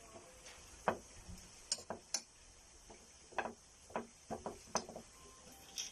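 Irregular light clicks and taps, about ten of them, over a faint steady high hiss.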